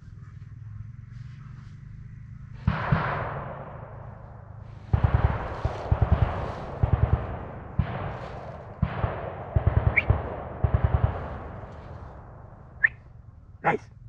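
Automatic weapons firing blanks in short bursts. Two shots come about three seconds in, then from about five seconds a string of quick bursts of four or five rapid shots each, with an echoing tail after each burst.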